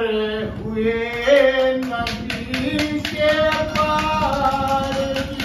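A male voice singing a Haryanvi ragini in long held notes that step and slide, over a harmonium's steady notes. From about two seconds in, a regular beat of sharp taps joins.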